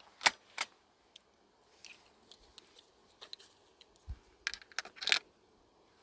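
Handling of a Beretta A300 Outlander 12-gauge semi-auto shotgun and its cartridges: irregular sharp metallic clicks and rattles, with a cluster of louder ones about four to five seconds in.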